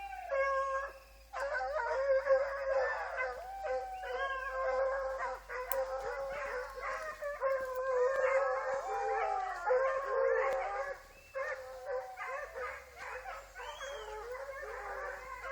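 Several hunting dogs howling together, with many pitched voices overlapping and a short lull about eleven seconds in.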